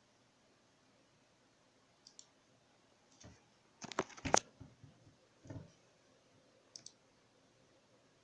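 A few scattered short clicks and taps against a quiet background. The loudest is a quick cluster about four seconds in, with single clicks before and after it.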